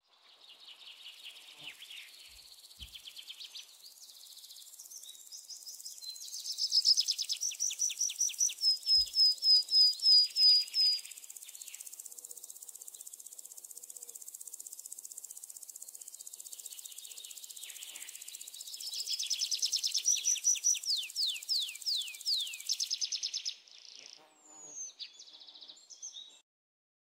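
Outdoor garden ambience: a steady high-pitched insect drone, with birds calling in fast runs of repeated, downward-sliding notes that grow loud twice, about a quarter of the way in and again around three-quarters through.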